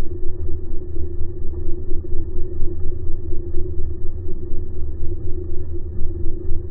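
Outboard motor running with its propeller spinning, heard underwater: a muffled, steady rumble with a constant hum over it.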